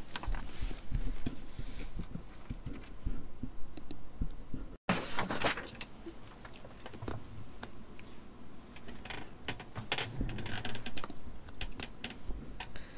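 Irregular clicks, taps and rustles of handling at a computer desk, with a brief cut-out of all sound about five seconds in.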